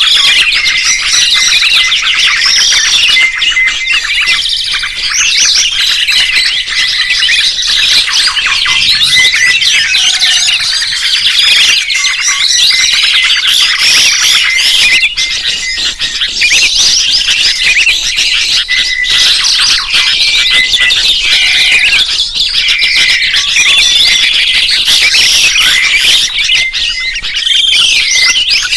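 Songbirds chirping and trilling rapidly and without pause, high-pitched, with a short repeated note recurring throughout.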